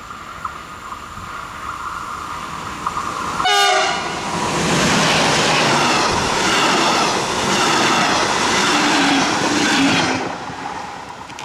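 Electric passenger train with double-deck coaches approaching with a steady high whine, giving a short horn blast about three and a half seconds in. It then passes close by, its wheels clattering over the rails for about six seconds before fading away.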